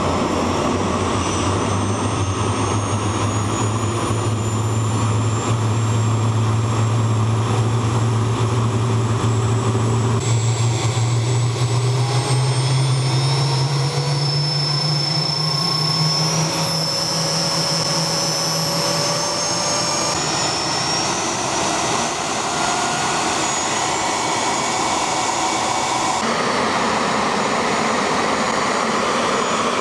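Homemade turbojet engine burning TS-1 kerosene, running loud and steady on a test stand. Its whine rises slowly in pitch over the first twenty seconds or so as it spools up, then holds steady.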